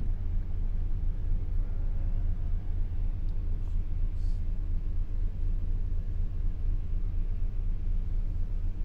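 MaK marine diesel main engine running at reduced, idle speed (about 300 rpm): a low, steady rumble with a faint steady hum above it, muffled as heard inside the engine control room.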